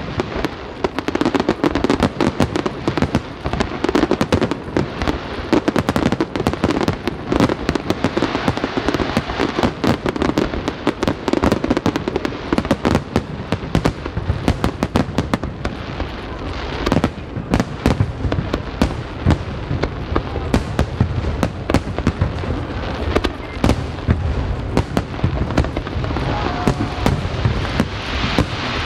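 Fireworks going off in quick succession: dense, rapid bangs and crackles, many per second.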